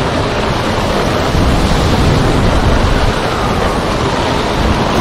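Water rushing and spray hissing past a racing trimaran's hulls as it sails fast through big breaking waves, with wind buffeting the microphone as a low rumble. The noise is loud and steady throughout.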